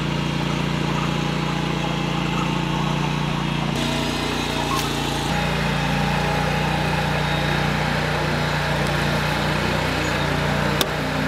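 Steady drone of an engine running, its tone shifting slightly a few seconds in.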